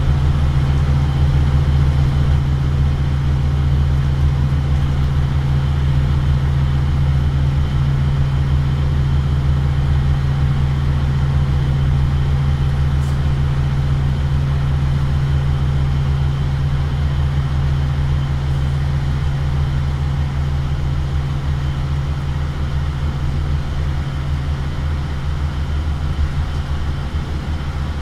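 Scania OmniCity bus running at speed, heard from inside the passenger saloon: a steady deep engine and drivetrain drone with road noise. It gets a little quieter over the last few seconds.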